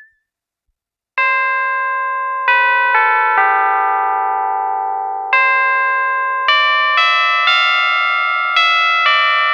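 Roland System-8 synthesizer playing a Jupiter-8 preset: a keyboard-like patch with chords struck one after another, each starting sharply and fading away. It comes in after about a second of silence, as the previous preset's sound stops.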